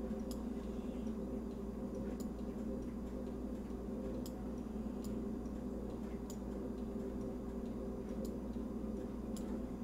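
Computer mouse clicking now and then, sharp single clicks at uneven gaps of one to two seconds, over a steady low electrical and room hum.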